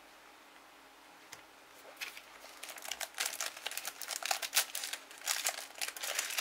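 Foil wrapper of a Topps Match Attax trading-card pack crinkling and crackling as it is handled and pulled open, starting about two seconds in after a single soft click.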